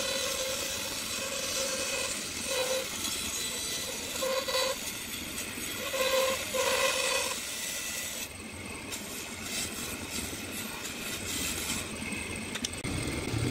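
Band saw cutting a curve through a thick pine board: a steady mechanical whir, with a louder hum that swells and fades several times as the blade bites into the wood. The sound thins out about eight seconds in.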